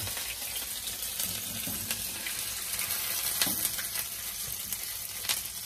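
Egg-battered huauzontle patty frying in hot oil: a steady sizzle with scattered sharper pops, the loudest about three and a half seconds in.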